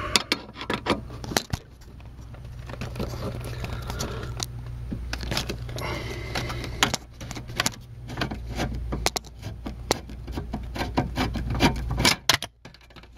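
Irregular clicks, taps and light scrapes of a hand tool turning a screw out of the metal bracket under a Mercedes-Benz W202 dashboard, over a low steady hum.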